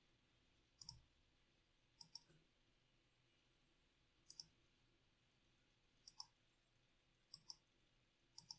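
Computer mouse button clicking six times, each a quick pair of sharp ticks, one to two seconds apart, with near silence in between.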